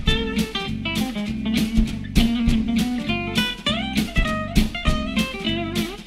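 Background music: plucked guitar over drums keeping a steady beat.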